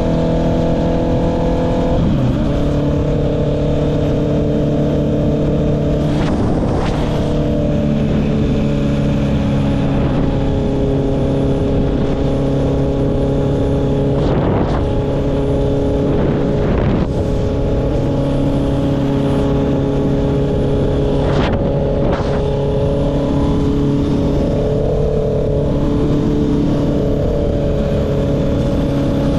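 Honda CB650R's inline-four engine running through an Akrapovic exhaust while the bike cruises at fairly steady revs. The engine note steps in pitch a few times, and there are brief whooshing sweeps here and there.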